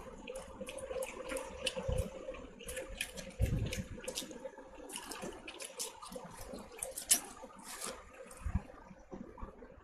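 Close-up eating sounds: wet chewing and lip smacks, with fingers squishing rice and chicken curry, heard as many short irregular clicks and smacks and a few soft thuds over a faint steady hum.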